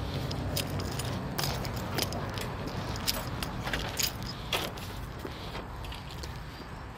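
Handling noise of a phone carried in the hand while walking: irregular clicks, taps and rustles against the phone and microphone, over a steady low rumble.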